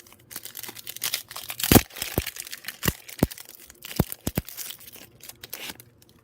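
A trading-card pack wrapper being torn open and crinkled, with a run of crinkling and several sharp crackles, the loudest a little under two seconds in.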